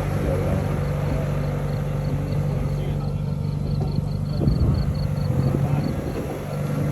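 Vehicle engine running steadily with an even low hum. A faint run of quick, evenly spaced high ticks comes through in the middle.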